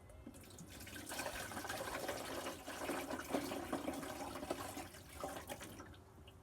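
Water running from a tap into a container for about five seconds, a steady rush with small splashes, then stopping.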